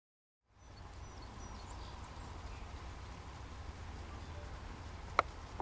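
Silent for the first half second, then outdoor field ambience: low wind noise on the microphone with a few faint bird chirps, and a single sharp click about five seconds in.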